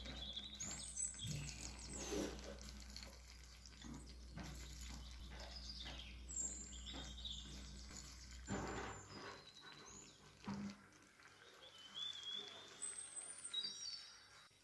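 Frozen green peas dropped by the spoonful onto potatoes and carrots in a clay tagine, landing as soft scattered clicks and rattles, with short high chirping calls in the background.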